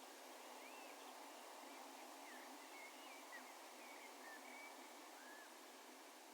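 Faint, scattered bird calls, a run of short slurred chirps and whistles, over a steady background hush of open-country ambience.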